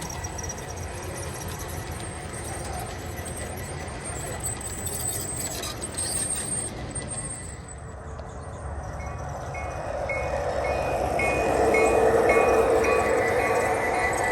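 Train on the rails, its rumble growing louder over the last few seconds. From about nine seconds in, a bell rings in an even repeating rhythm, under two strokes a second.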